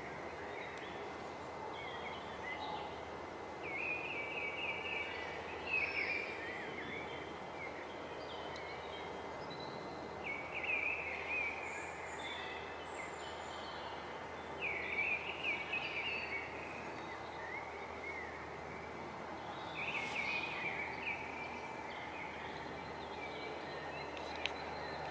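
Wild birds singing: short, quickly warbling phrases of chirps come every four or five seconds, with a few softer calls between them, over a steady background of outdoor ambient noise.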